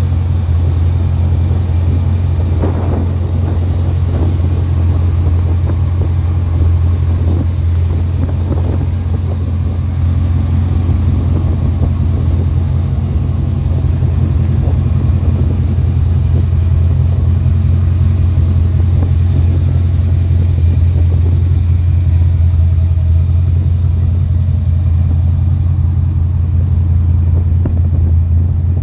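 1955 Chevrolet 210's engine idling steadily, a constant low hum.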